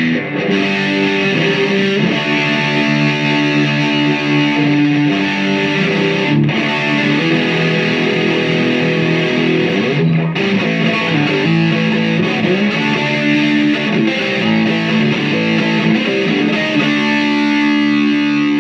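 Electric guitar (BC Rich Mockingbird with FU-Tone pickups) played with heavy stacked gain: a Washburn Solo Distortionist driving a Digitech Screamin' Blues into a Marshall Lead 100 Mosfet solid-state amp and 1x12 cab. Distorted chords and held notes ring out, a little murky on the chords, with two brief breaks around six and ten seconds in.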